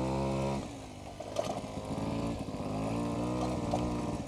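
Vintage Piaggio Ciao moped's small two-stroke single-cylinder engine running on a dirt road. The revs sag about half a second in, then pick back up and hold, with a few sharp clicks.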